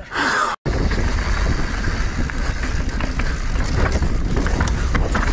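Mountain bike descending a rocky downhill trail, heard from a helmet camera: steady wind rush on the microphone and tyre rumble, with small rattles and clicks from the bike over the rocks. It starts after a brief cut to silence about half a second in.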